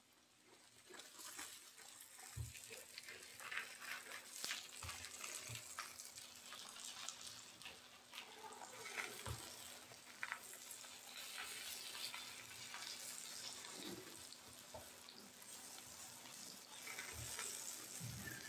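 Pumpkin slices sizzling and crackling as they fry in mustard oil, the sizzle swelling about a second in. A spatula knocks and scrapes against the frying pan now and then as it turns the slices.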